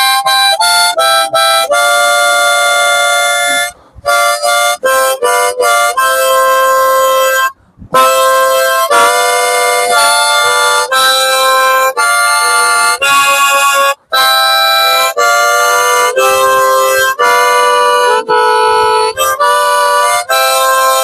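Harmonica playing a melody with chords, in short phrases broken by brief pauses.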